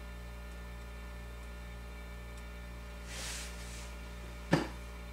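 Steady electrical mains hum, with a brief soft hiss about three seconds in and a single sharp tap about four and a half seconds in, the loudest sound here.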